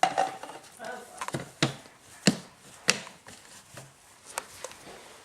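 A toddler at play makes a run of sharp knocks and taps, about seven, spaced unevenly, with a faint brief vocal sound near the start.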